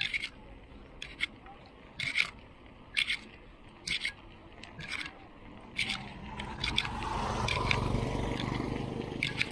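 Bicycle being pedalled on a concrete road: a sharp click or creak from the bike about once a second, in time with the pedalling, over faint road noise. From about six seconds in, a louder rushing rumble builds and stays.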